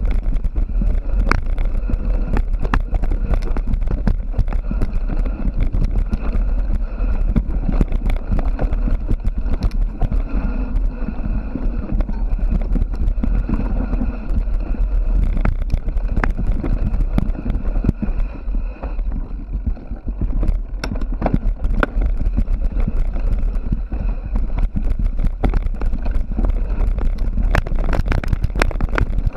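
Mountain bike being ridden over a rough trail, picked up by an action camera mounted on the bike or rider: steady wind rumble on the microphone with frequent rattles and knocks from the bike over bumps.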